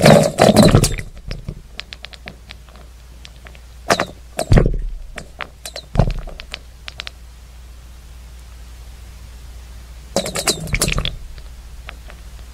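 Recording from a listening device in the ground: a steady low hum with irregular knocks and thuds, heaviest at the start, twice around the middle and in a cluster near the end, with faint scattered clicks between. The recordists present it as blasting and rock-drill work about 17 m underground.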